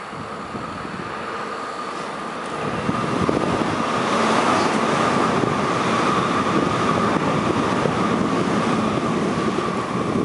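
MTR West Rail Line SP1900 electric train running past, a steady rumble with a steady high whine above it. It gets louder about two and a half seconds in as the train draws level and stays loud while it passes.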